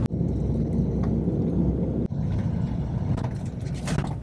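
Steady low rumble of engine and road noise heard from inside a moving passenger shuttle van.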